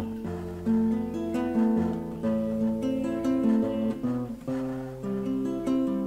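Background music: strummed acoustic guitar chords, a new chord struck at an even pace.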